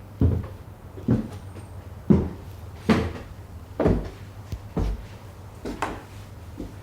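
A series of evenly spaced dull thuds, about one a second, over a low steady hum.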